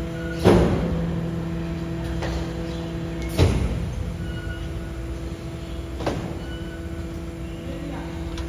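Rear-loader garbage truck's hydraulic compactor running with a steady hum while the packer blade crushes cardboard boxes and pillows in the hopper. There is a sharp clank about half a second in, a louder one about three and a half seconds in, and a lighter one about six seconds in.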